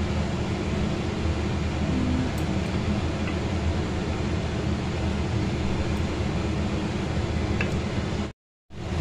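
Steady rushing kitchen background noise with a few faint light ticks as a wooden spatula stirs thickening milk in an aluminium pot. The sound cuts out abruptly for a moment near the end.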